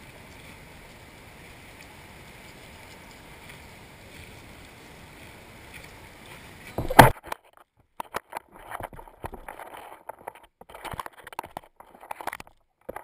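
Steady shoreline ambience of wind and small waves. About seven seconds in comes a single loud knock, after which the background drops out and only scattered short, irregular sounds remain.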